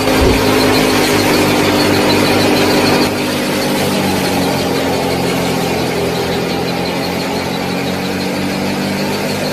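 Small motor of a miniature DIY machine running steadily with a whine, dropping slightly in level about three seconds in.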